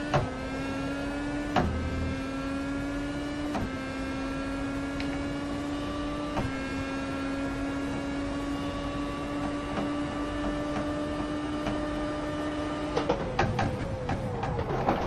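A small electric motor whining steadily at one pitch, with a few sharp clicks where the pitch steps slightly. Near the end the whine falls away into rattling.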